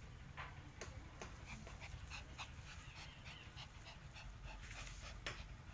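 A dog making faint, brief high whines, among scattered light clicks and scuffs.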